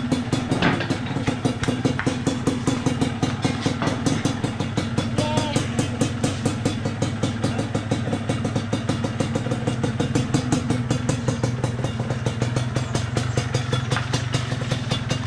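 Yamaha DT125 two-stroke single-cylinder engine idling steadily with a fast, even pulse, test-run on its newly fitted replacement carburetor.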